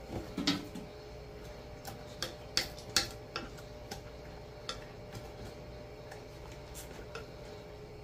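Metal kitchen tongs clicking and tapping against a saucepan of wing sauce, a dozen or so sharp, irregular clicks, most of them in the first four seconds, over a faint steady hum.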